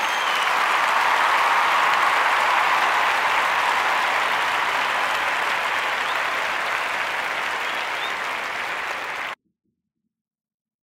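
A crowd applauding steadily, ending in an abrupt cut-off about nine seconds in.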